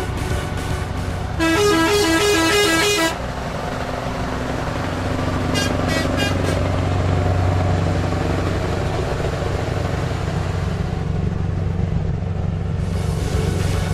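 Scania R500 V8 truck with open exhaust pipes droning steadily, heard from inside the cab, swelling slightly after about five seconds. About a second and a half in, a loud air horn sounds for under two seconds in rapid on-off pulses. A few seconds later comes a quick run of short, high toots.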